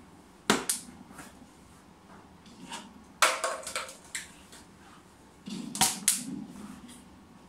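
Sharp knocks or taps in a small room: one about half a second in, a quick cluster around three seconds, and two close together near six seconds.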